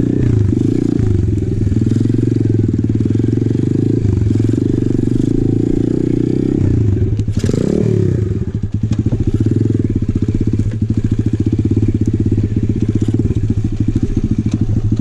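Apollo RFZ 125cc pit bike's single-cylinder four-stroke engine running at low speed on a trail. Near the middle the engine note swings up and back down, with a brief knock, and after that the firing pulses become slower and more distinct as the bike slows.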